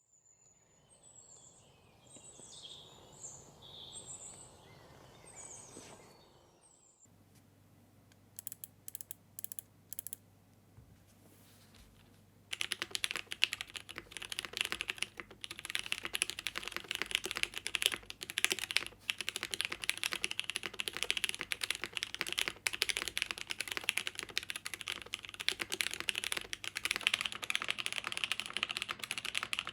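Fast, continuous typing on a Geonworks Frog TKL mechanical keyboard with unlubed Boba U4T tactile switches on 62 g springs, a POM plate and GMK Kaiju keycaps, starting about twelve seconds in after a few scattered keystrokes. The first few seconds hold faint high chirps.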